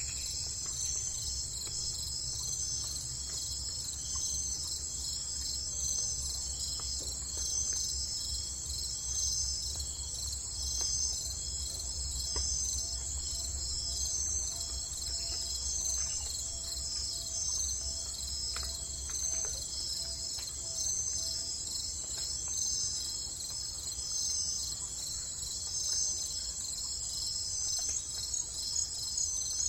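Crickets chirping in a steady, high-pitched chorus with an even, rapid pulsing, over a low rumble.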